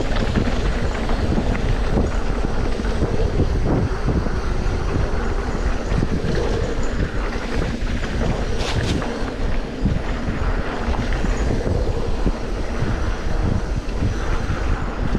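Wind buffeting the microphone: a loud, continuous rush with irregular low thumps and no pauses.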